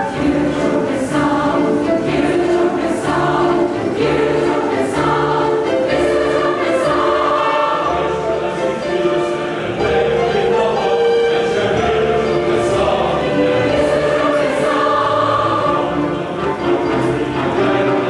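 A large mixed choir of men's and women's voices singing a sacred anthem, accompanied by an orchestra of strings and brass.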